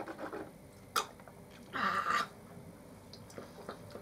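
Drinking through a straw from a small juice box: a sharp click about a second in, then a short, noisy slurp through the straw about two seconds in.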